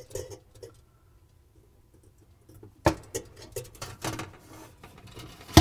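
Needle-nose pliers and a wire's push-on connector clicking and scraping against a broil element's terminal as the connector is worked on. After a quiet start comes a sharp click about three seconds in, then scattered small clicks and rustles, and another sharp click at the end.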